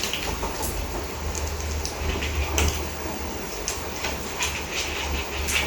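Rain falling on an umbrella: a steady hiss with many irregular drop taps, over a low rumble.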